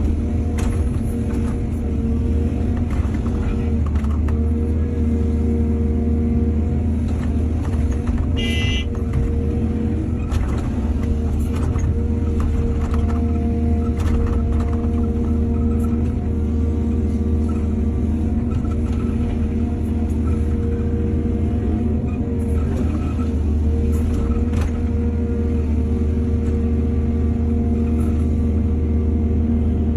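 Excavator's diesel engine running steadily under load, with scattered knocks and clanks from the machine at work. A brief high-pitched beep about nine seconds in.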